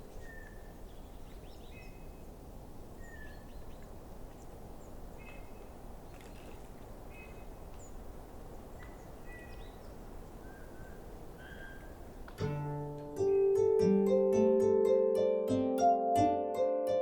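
A steady low background rumble with short, faint bird calls chirping above it. About twelve seconds in, plucked-string music, a GarageBand koto improvisation, starts suddenly and becomes the loudest sound.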